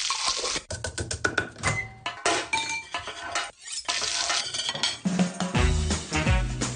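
Quick run of kitchen sounds: metal pots and utensils clinking and knocking, some with a short ringing tone. About five seconds in, music with a steady beat and a bass line comes in.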